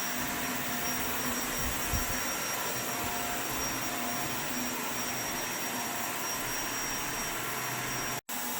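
Jackhammer chipping floor tiles out in the apartment above, heard through the ceiling as a steady, loud racket that breaks off for an instant near the end.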